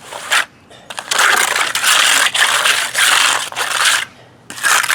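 Gritty scraping and crunching on rough concrete, steady for about three seconds, pausing briefly near four seconds and starting again near the end.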